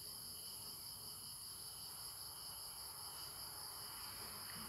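Crickets trilling in a steady, faint, high-pitched chorus.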